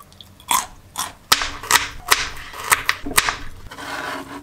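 A kitchen knife slicing a raw carrot into rounds on a plastic cutting board, a series of crisp crunchy cuts at uneven intervals, each ending in a knock of the blade on the board.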